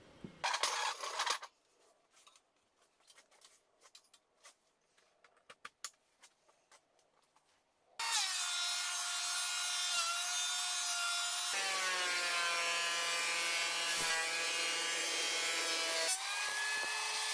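Bench planer-thicknesser switched on about halfway through, starting suddenly and running with a loud, steady whine. A few seconds later the whine drops in pitch as a board is fed through and planed under load. Before it starts, a short loud scrape and then faint scattered clicks.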